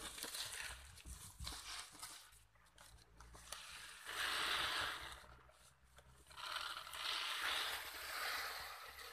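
Dry grain pouring from one woven plastic sack into another, giving a steady hiss, first about four seconds in and again from about six and a half seconds on.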